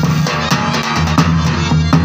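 Rajasthani folk music for a Bhavai dance, led by a dhol drum beating a fast, even rhythm of about four strokes a second over a held low note.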